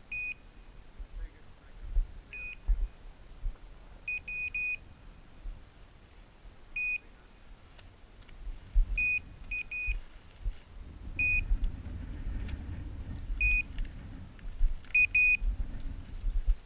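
Electronic beeper collar on a bird dog sounding short, high beeps, singly and in quick runs of two or three, every second or two. Low rumbling and thumping noise joins about halfway through.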